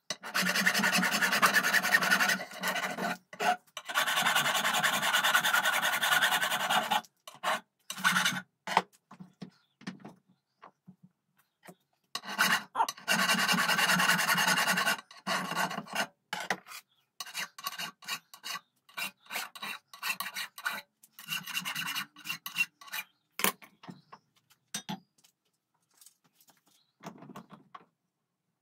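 Flat hand file rasping back and forth along a metal bar clamped in a vise, in two long runs of quick strokes with shorter strokes and taps between. It goes mostly quiet in the last few seconds.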